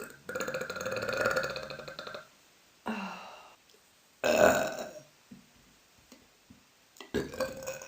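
A woman burping. First comes one long burp lasting about two seconds, then two shorter burps, and a few quick small sounds near the end.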